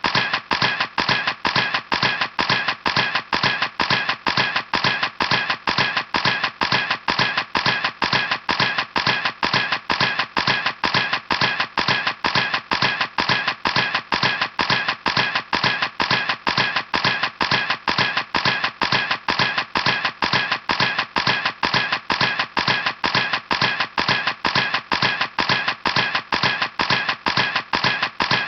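Camera clicking: a sharp mechanical click repeating evenly, about three times a second, without a break.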